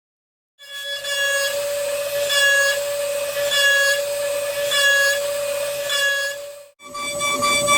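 A small CNC milling machine cutting: a steady high spindle whine, with a brighter cutting pattern that comes back about every 1.2 seconds. It cuts off sharply near the end.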